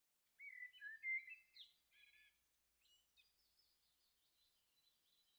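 A songbird singing: a few clear whistled notes and short slurs, then a fast twittering warble from about three seconds in.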